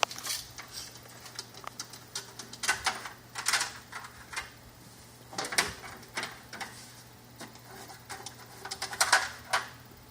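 Irregular clicks, knocks and brief scrapes of hands handling parts and tools while working on a laser machine's power supply, with a faint steady low hum underneath.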